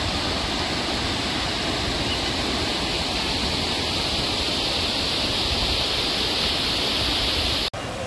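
Mountain stream rushing over rocks and boulders: a steady, even rush of water, briefly cut off near the end.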